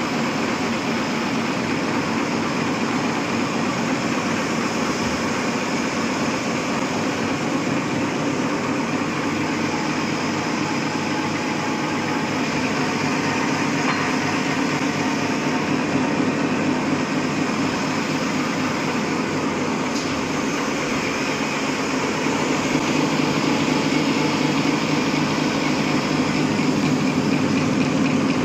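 High-speed four-lane napkin paper folding machine running steadily: a fast, even mechanical rattle over a steady hum, growing a little louder near the end.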